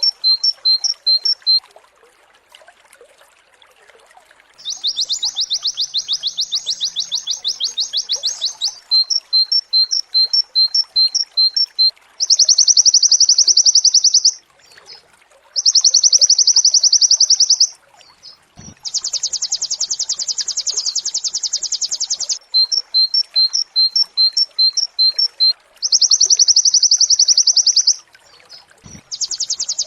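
White-eye (pleci) singing its rapid-fire 'nembak' song: long, fast, high-pitched trills of about two seconds alternating with runs of evenly spaced chirps, with short pauses between phrases. After a brief pause at the start, the song is near-continuous.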